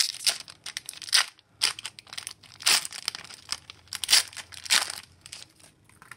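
Foil wrapper of an Upper Deck Series 1 hockey card pack being torn open and crinkled by hand, in a run of separate sharp rips and crinkles.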